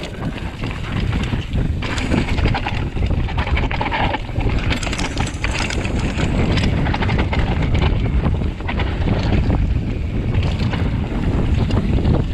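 Wind buffeting the microphone during a fast mountain-bike descent, a steady low rumble throughout. Over it come the crunch of tyres on loose slate and quick rattling knocks from the titanium hardtail bike jolting over the rocks.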